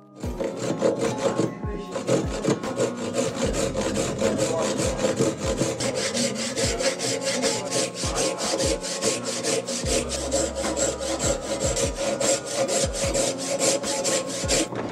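Hand saw cutting into the end grain of a hard maple block, with quick, even rasping strokes, several a second.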